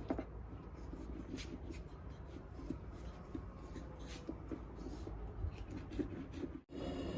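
Soft, irregular rubbing and light pats of hands working rested naan dough. Near the end it cuts off abruptly to a steadier hum.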